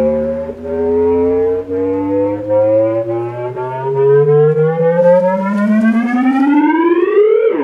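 Test-tone sweep played through a Scosche EFX 10-inch subwoofer enclosure: one tone gliding steadily up from a low bass note to a much higher pitch, then dropping back sharply at the very end.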